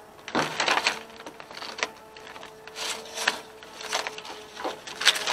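Rustling and clicking as the new pole lopper's saw attachment and paper instructions are handled, several short rustles and clicks about a second apart, over a faint steady hum.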